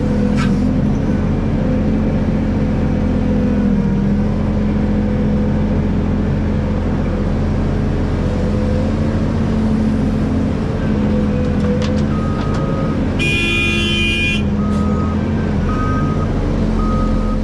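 Hydraulic excavator's diesel engine running steadily under load. About two-thirds of the way through, a horn sounds for just over a second, and a repeated electronic beep, about two a second, comes in near the end.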